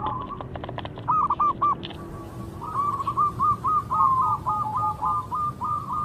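Zebra dove (perkutut) singing: a few short coos about a second in, then a run of arched coos that speed up into a rapid rolling trill.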